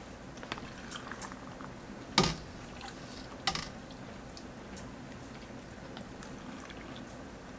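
Brine being ladled from a stainless stockpot into canning jars through a plastic funnel: a metal ladle knocks sharply twice, about two seconds in and again a second later, amid light clinks and faint pouring of liquid.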